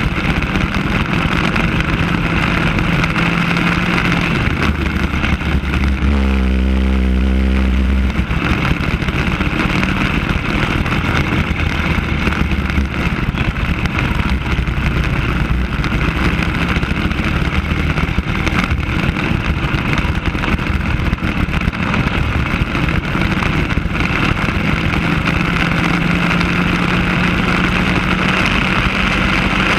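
Racing kart engine running hard on track, heard from on board the kart, its note shifting with throttle through the corners and turning deeper and steadier for a couple of seconds about six seconds in.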